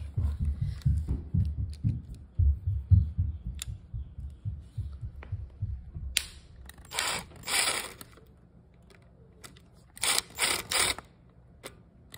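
Cordless drill/driver tightening a screw on a dirt bike's air filter and carburetor mount. The motor runs in short trigger bursts: two a little past halfway and three in quick succession near the end. Quick low knocking comes first.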